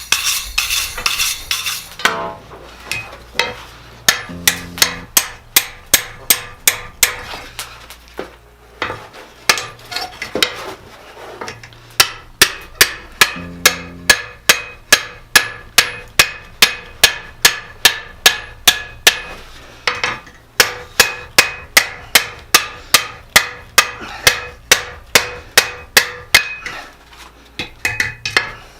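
Blacksmith's hammer forging hot steel on an anvil: a steady run of sharp strikes, about two to three a second, broken by a few short pauses.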